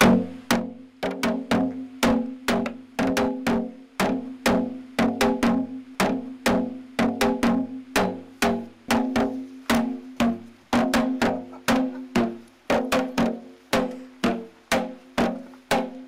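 Janggu, the Korean hourglass drum, struck with two sticks in a steady folk rhythm of about two to three strokes a second, each stroke ringing with a low drum tone.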